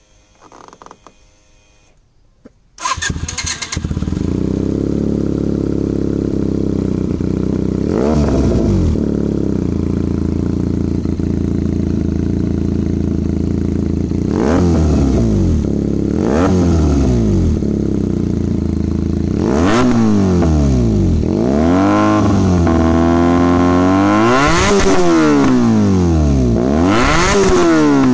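Benelli TNT 300's parallel-twin engine running through an SC Project S1 exhaust. It starts about three seconds in and settles to a steady, loud idle, then is blipped: a few separate throttle blips at first, then blips in quicker succession toward the end, each rev rising and falling back to idle.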